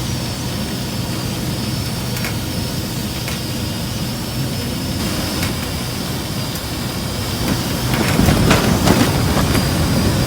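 Strong wind blowing steadily against a tent, with gusts buffeting the tent and growing louder and more uneven in the last few seconds.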